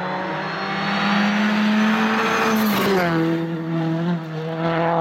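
Citroën C3 R5 rally car's turbocharged 1.6-litre four-cylinder engine coming closer under throttle, its note rising in pitch and loudness. About two and a half seconds in there is a brief crack and the note drops to a lower, steady pitch as the car passes and slows for the bend.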